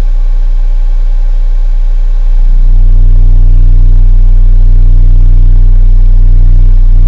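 Digital Designs 1508 Supercharged 8-inch subwoofer in a ported box playing a steady, very deep 30 Hz test tone, very loud. About two and a half seconds in it grows louder still and takes on a buzzy edge.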